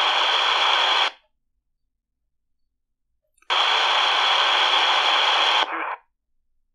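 C.Crane CC Skywave 2 portable radio receiving the aircraft band: a rush of radio static hiss that cuts off abruptly about a second in as the squelch closes. It reopens about three and a half seconds in for some two seconds of hiss, then cuts off again.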